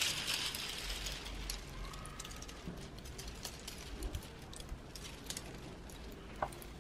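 Thin mylar film crinkling and rustling as a large sheet is handled and pulled around a wooden frame: a loud, hissy rustle at first, then light, scattered crackles.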